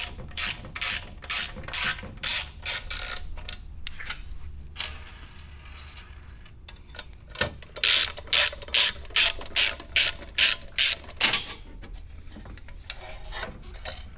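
Hand ratchet wrench clicking in quick runs, about three clicks a second, as bolts are turned out of a Tillotson 212 engine to take off its blower housing. It pauses for a few seconds in the middle, then starts again louder.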